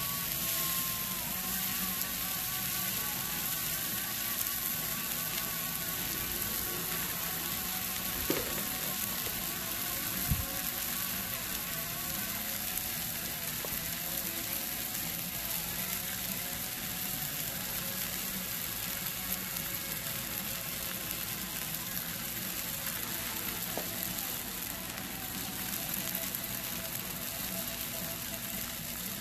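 T-bone steaks sizzling steadily on a hot steel griddle over a fire pit, with two brief knocks about eight and ten seconds in.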